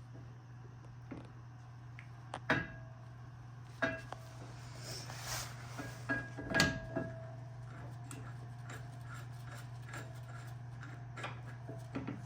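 Metal clinks and knocks of brake caliper parts and tools being handled and lined up, several ringing briefly, the loudest about six and a half seconds in, over a steady low hum.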